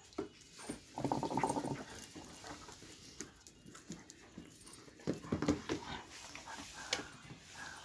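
Doberman vocalising while playing: a rough, low-pitched sound lasting most of a second about a second in and another around five seconds in, with scattered clicks and scuffles in between.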